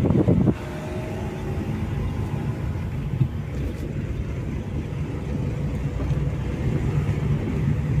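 A Honda WR-V driving, heard from inside the cabin: a steady low engine hum with tyre and wind noise. A louder rumble comes in the first half second.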